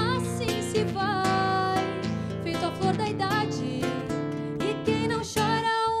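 Nylon-string acoustic guitar strummed in chords, under a wavering violin melody of short notes, with a long held note near the end.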